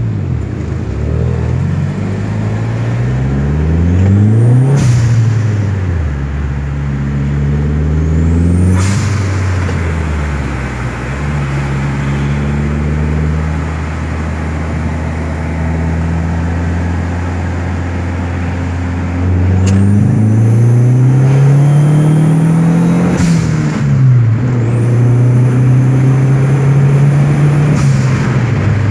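Dodge SRT-4's turbocharged 2.4-litre four-cylinder engine heard from inside the cabin, accelerating hard with its pitch climbing and dropping at the gear changes. It settles to a steady cruise in the middle, then pulls hard again, with a short burst of hiss at each shift.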